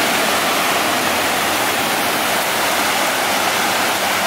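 Fast-flowing floodwater rushing and churning, a steady loud rush with no breaks.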